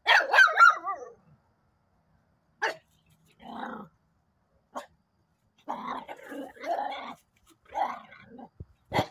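Small dog barking and growling in several bursts, with high wavering yips loudest in the first second.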